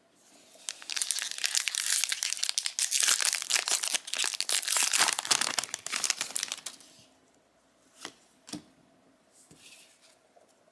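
A trading card booster pack's plastic wrapper crinkling and tearing open for about six seconds, followed by a couple of light clicks.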